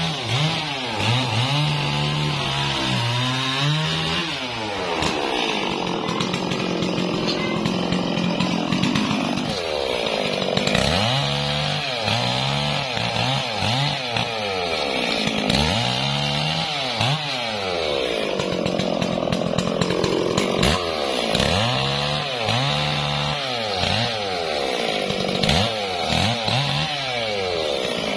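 Stihl MS440 two-stroke chainsaw bucking a felled log, revving up and dropping back again and again, its engine pitch rising and falling with each cut.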